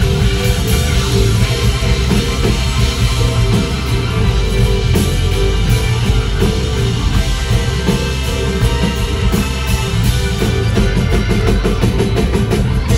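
Rock band playing live: electric guitars, keyboard and drum kit in an instrumental passage, with a quick run of drum strokes near the end.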